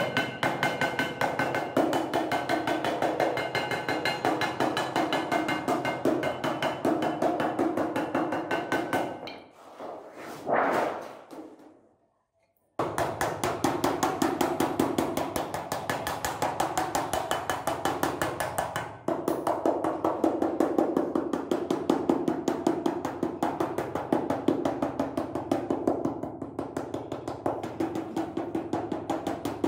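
Rapid, even hammer strikes on the sheet metal of a hand-built washing machine, with a ringing tone; the strikes stop for a few seconds about ten seconds in, then go on.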